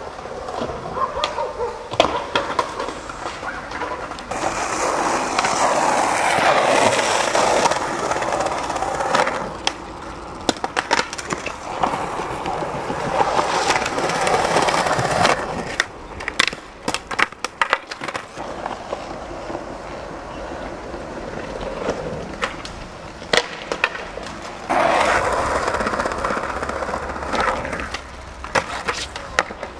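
Skateboard wheels rolling on rough concrete in several long runs, broken by sharp clacks of the board popping, hitting the ground and landing.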